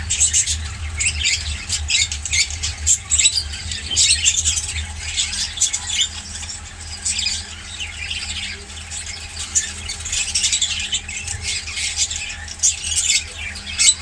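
Caged parrots and parakeets squawking and chirping: many short, shrill calls overlapping without a break, over a low steady hum.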